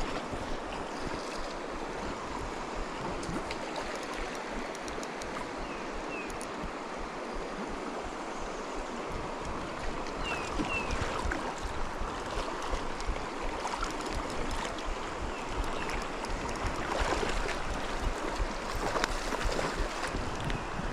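Running stream water, a steady rushing wash, with a few faint short high chirps.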